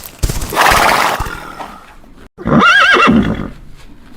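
Horse whinnying: a breathy burst in the first second, then a wavering, quavering neigh a little after halfway.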